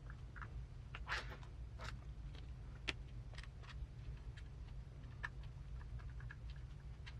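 Faint, scattered light clicks and short rustles of small metal and plastic gearbox parts being handled while a small pin is fitted into a transmission shaft, over a low steady hum.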